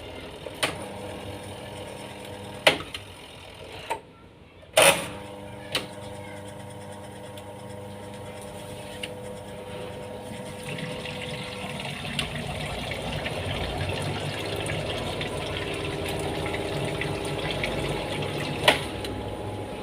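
Washing machine running: a steady motor hum broken by several sharp knocks, the loudest about five seconds in, then from about twelve seconds in a growing rush of water.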